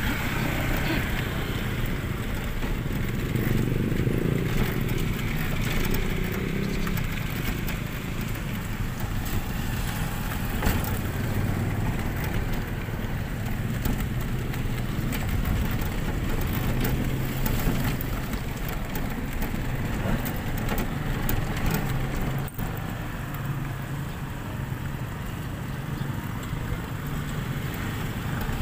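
Steady street-traffic and road noise heard from a moving pedal-powered bicycle sidecar (padyak), with scattered clicks and knocks from the ride.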